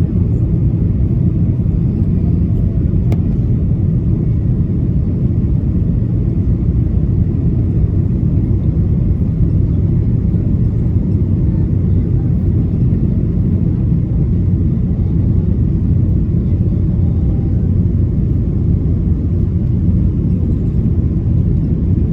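Steady low rumble of engine and airflow noise inside the cabin of an Airbus A330-300 with Rolls-Royce Trent 700 engines, on approach. There is a faint click about three seconds in.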